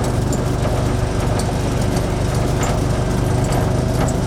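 Kawasaki Mule utility vehicle's engine running steadily at low revs while it pushes a sprint car, with a few light rattles.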